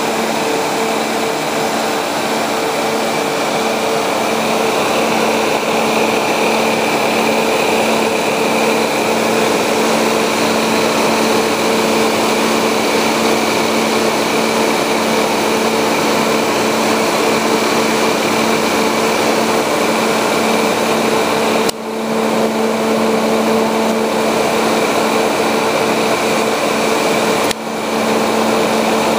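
Contour electric radiator cooling fans running, a loud steady rush of air with a motor hum, pulling air through a three-row radiator and AC condenser. The sound dips briefly twice in the last third.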